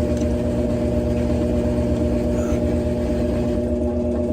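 A steady machine hum, a motor running at an even pitch over a low rumble.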